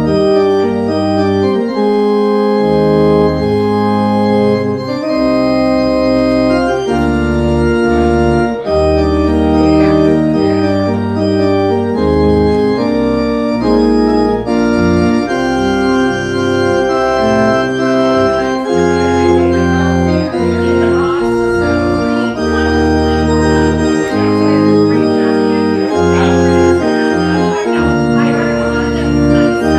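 Church organ playing slow, sustained chords over a deep bass line.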